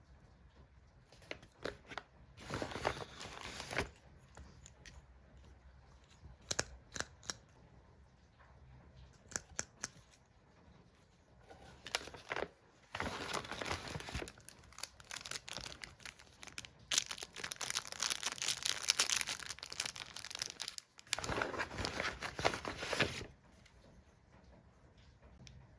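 Packaging being handled and torn open: scattered sharp clicks and taps, a short crinkling burst near the start, then about ten seconds of dense crinkling and tearing in the second half.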